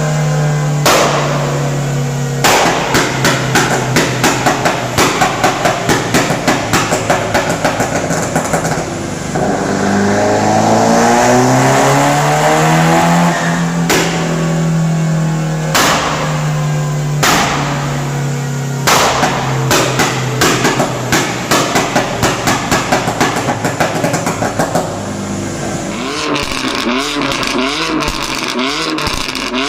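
Car engine held at steady revs while the exhaust pops and crackles in rapid runs of sharp bangs. Midway the revs drop and climb back up, and near the end the engine gives a quick series of short rev blips.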